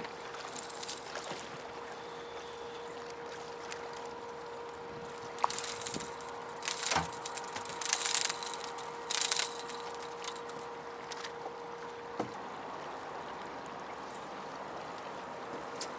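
A hooked skipjack splashing at the water's surface beside a small boat: several short, splashy bursts in the middle, the loudest about eight seconds in, over steady water noise. A steady hum runs underneath and stops about twelve seconds in.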